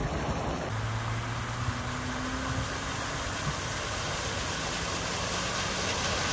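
Steady rushing noise of floodwater with a low engine hum coming and going under it, after a cut about a second in.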